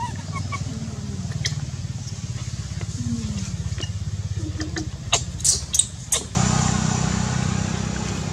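A baby long-tailed macaque gives several short, high-pitched squealing cries in quick succession about five seconds in. A steady low engine hum runs underneath throughout.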